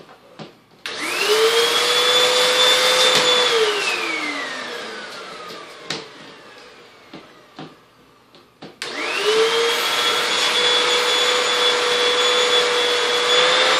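A vacuum cleaner is switched on about a second in: its motor whine climbs at once to a steady high pitch, then it is switched off and spins down slowly with a falling whine. It is switched on again a little past halfway and runs steadily until it starts to wind down at the end. A few light knocks are heard in the quiet stretches.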